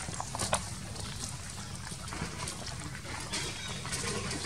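Faint macaque sounds and rustling over a steady low rumble, with a sharp click about half a second in.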